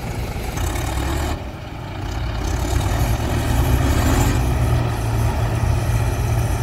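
Mahindra Yuvo tractor's diesel engine running under load as the tractor drives through wet sand and shallow water. It drops briefly about a second and a half in, then grows louder and stays loud.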